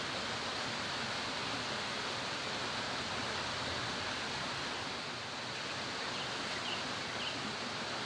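Steady rushing of a mountain valley stream, an even wash of running water with no change throughout, and two faint high chirps near the end.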